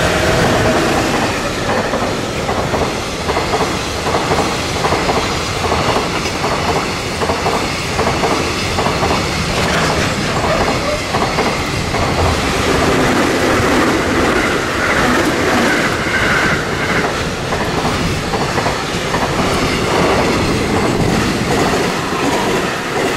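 Container wagons of a long freight train rolling past at speed, their wheels beating out an even clickety-clack over the rail joints. About halfway through, a JR West 221 series electric passenger train runs in on the adjacent track, adding a brief steady hum and then a higher whine over the wheel noise.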